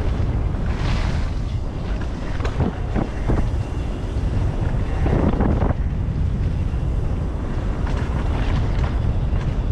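Wind buffeting an action camera's microphone over the rolling of mountain bike tyres on a dirt and leaf-covered trail. A few sharp knocks from the bike come about two and a half to three and a half seconds in, and there is a louder rush of tyre and brush noise a little past halfway.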